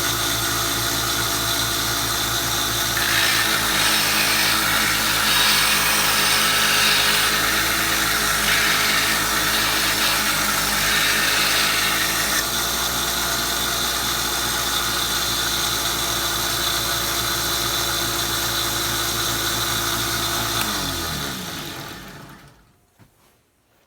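Belt sander running with a 120-grit belt, grinding a carbon-steel draw knife blade. The grinding hiss is strongest from about three to twelve seconds in. Near the end the motor is switched off and spins down to a stop.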